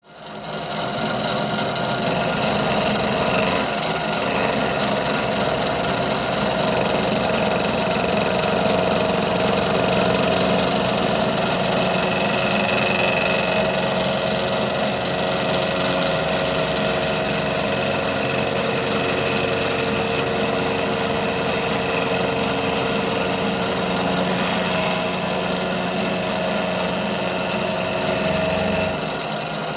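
An engine idling steadily at a constant speed, likely the repaired engine on a test run. It comes in over about a second and dips slightly in level near the end, with no revving.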